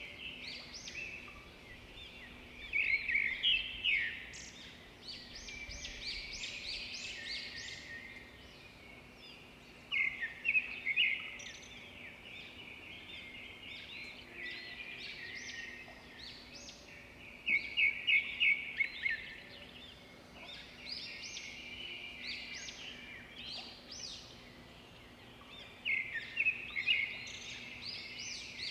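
Birds chirping and singing, several quick runs of high chirps recurring every few seconds, over a faint steady hum.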